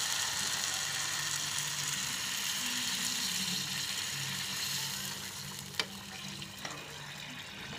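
Water poured into a hot pan of spiced rice sizzles with an even hiss while a steel ladle stirs it through; the sizzle dies down after about five seconds as the water takes over. One sharp tap sounds about six seconds in.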